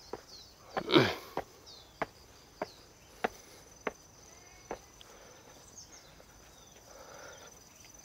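Footsteps on a stepped path, a sharp step about every half second or so, stopping after about five seconds, with a heavier thump about a second in. Under them runs a steady high insect trill, with a few bird chirps near the start.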